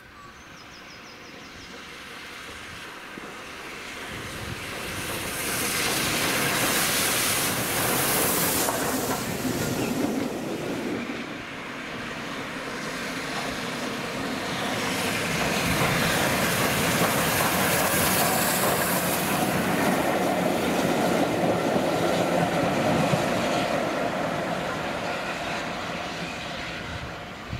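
LNER A3 steam locomotive Flying Scotsman and its support coach passing at moderate speed, with wheels clattering over the rails and steam hissing. The sound builds as it approaches, stays loud through most of the pass, and fades near the end as it draws away.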